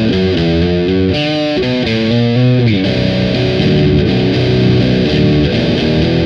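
Fender Jazzmaster bridge pickup, tuned to C standard, played through a Boss DS-1 distortion pedal: a riff of separate notes, turning into a denser run of notes about three seconds in.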